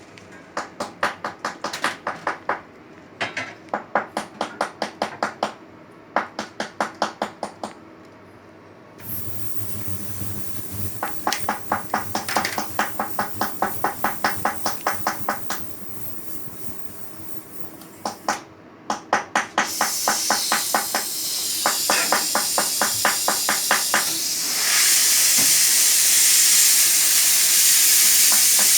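A soldering torch's gas flame hissing, coming in about nine seconds in and getting louder twice towards the end. Before and between the hissing, runs of quick sharp metallic taps, several a second, in short groups.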